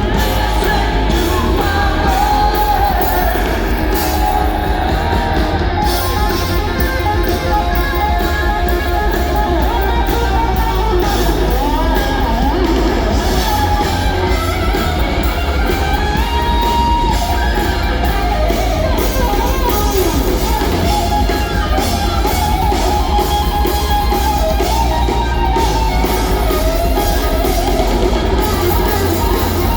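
Live hard rock band playing loudly, with electric guitar and singing over the band.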